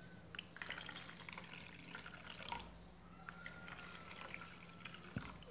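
Salt water poured from a jug into the small compartments of a plastic box, faint, with scattered drips and small splashes.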